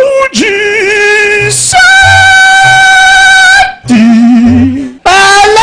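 A singing voice holding long notes into a microphone: one held about a second, a higher one held about two seconds, then a short low note, and a pitch climbing upward near the end.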